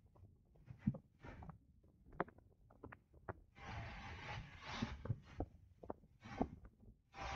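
Wind buffeting the microphone of a camera mounted on the outside of a moving car, coming in short gusts from about three and a half seconds in, with scattered knocks and thumps throughout.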